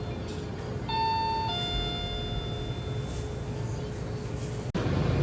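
Electronic door chime: a held tone, a higher tone about a second in, then the lower tone again, fading out.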